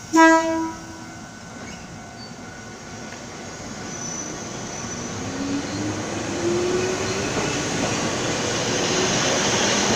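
Sangi Railway 101 series electric train sounds a short horn blast, then pulls away: a traction-motor whine rises in pitch as the train accelerates, and the running noise grows steadily louder.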